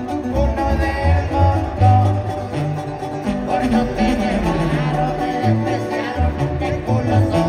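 Live regional Mexican corrido band playing, with a sousaphone bass line stepping under guitars, heard loud from within an arena crowd.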